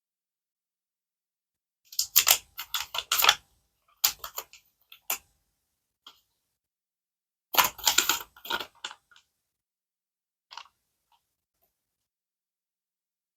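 Crinkling, crackling packaging of a surprise toy being unwrapped by hand, in three short spells of rustling, with one small click after them.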